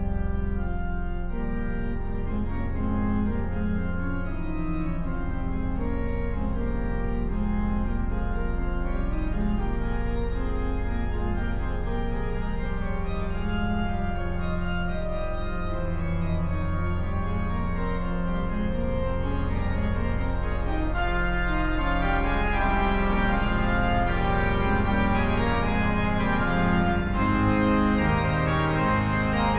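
Organ postlude: sustained chords over a steady deep pedal bass, growing fuller and brighter about two thirds of the way through.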